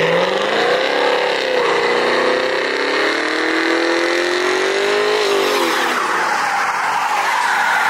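Muscle car doing a burnout: the engine revs up hard and holds high revs while the rear tyres spin and squeal. About five seconds in the revs drop, while a loud tyre hiss carries on.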